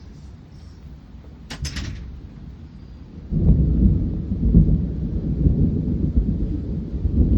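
Thunder: a deep, loud rumble breaks in suddenly about three seconds in and keeps rolling. A brief sharp rattle comes a second and a half in.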